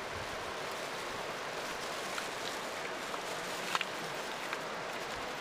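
Steady rush of flowing river water, with a few light clicks of freshwater clam shells knocking together and on the rock as they are tipped out of a mesh bag, the sharpest nearly four seconds in.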